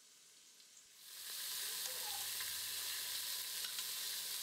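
Near silence, then about a second in, spice-coated chicken breasts sizzling steadily in ghee in an Instant Pot's stainless steel inner pot on the sauté setting, browning before pressure cooking.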